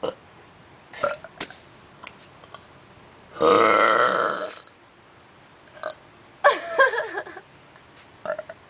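A person burps once, loudly, for about a second, starting about three and a half seconds in.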